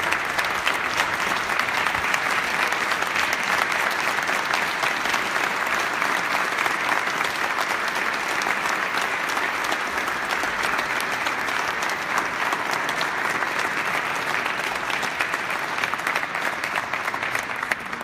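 A large chamber audience applauding, steady sustained clapping that dies away at the very end.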